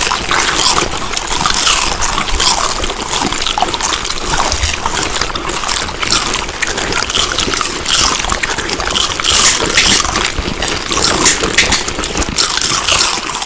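Close-miked chewing of food: a continuous run of many small clicks and crunches without a break.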